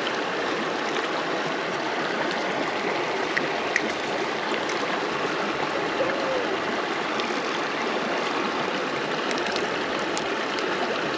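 Mountain stream running fast with snowmelt: a steady, even rush of water.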